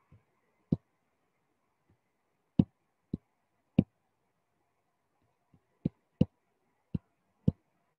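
About eight sharp, irregularly spaced clicks from someone operating a computer, in two clusters, over faint room hum.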